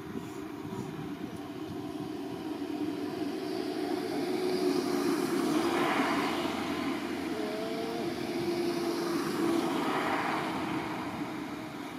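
A motor engine drone that grows louder to a peak about six seconds in, swells again near ten seconds, and then fades away.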